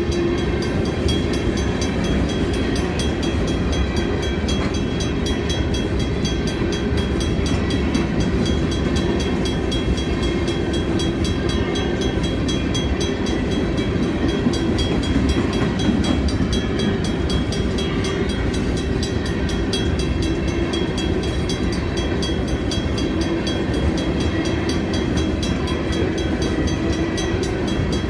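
Freight train cars rolling steadily past: a continuous rumble of steel wheels on the rails.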